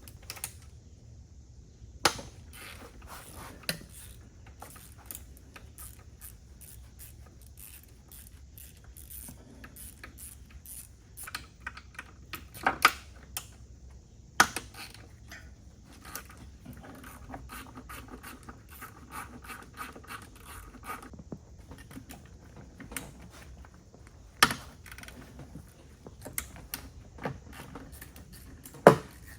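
Hand socket ratchet clicking as the 10 mm intake-manifold bolts are undone, with sharp metal clinks and knocks of the tools against the engine. About two-thirds of the way through there is a spell of rapid, steady ratchet clicking.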